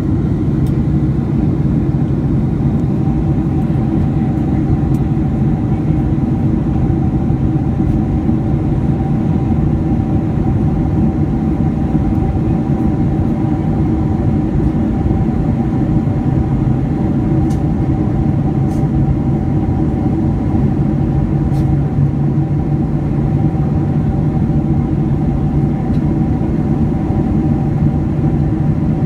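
Cabin noise of a Boeing 747-400 in flight, heard from a window seat over the wing: a steady, loud rush of airflow with the engines' constant low hum underneath.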